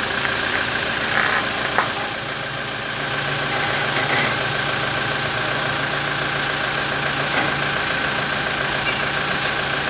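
Car engine idling, with a sharp click about two seconds in, then a low groan for a few seconds: the creaking/groaning that comes when the brake is released.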